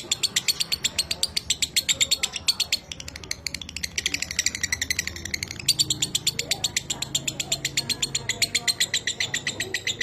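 Lovebird singing its long 'ngekek' chatter: a high-pitched run of rapid, evenly repeated notes, about seven a second, easing briefly a few seconds in and then picking up again.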